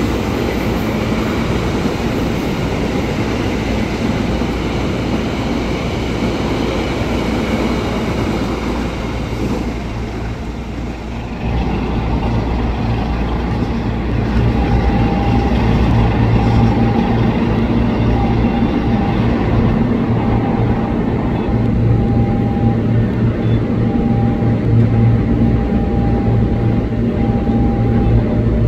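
A locomotive-hauled passenger train rolling along the tracks, its rumble easing off about a third of the way through. A louder, steady low diesel-engine drone then takes over, with a high tone cutting in and out over it for the rest of the time.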